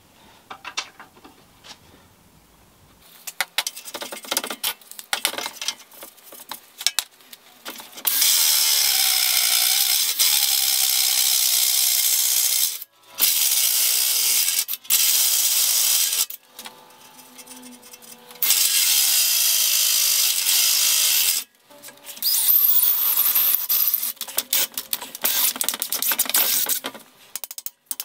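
Power drill running a hole saw through steel plate in four bursts of a few seconds each, starting and stopping abruptly, its motor pitch dipping and recovering under load. Before the drilling there are several seconds of scattered clicks and rattling from tools being handled.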